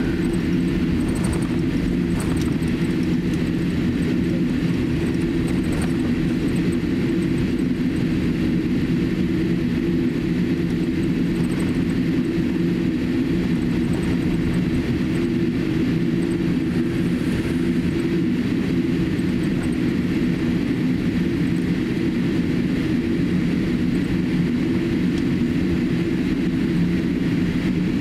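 Cabin sound of a Boeing 787-8 airliner taxiing: a steady drone from its engines at taxi power and the airframe, with several steady low tones and no change in level.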